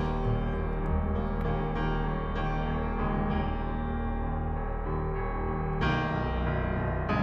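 Background music led by piano, its notes held and changing steadily.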